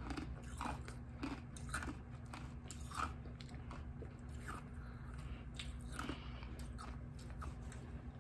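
Mouth sounds of biting and chewing hard frozen ice pops: irregular crunches of ice, several in quick succession at first, then spaced out every second or so.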